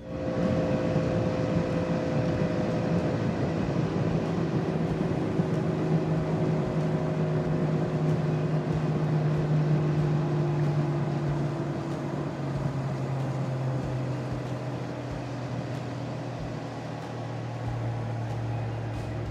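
Small boat's outboard motor running underway under a steady hiss, its pitch sinking gradually as the engine slows.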